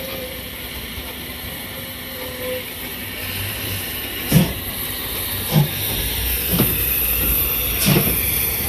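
C11 steam tank locomotive No. 207 turning on a turntable, with a steady hiss of steam. In the second half a run of sharp knocks comes about once a second.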